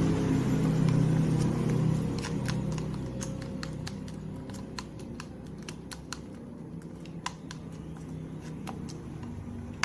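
A vehicle engine droning and fading away over the first three seconds or so, followed by scattered light clicks and taps.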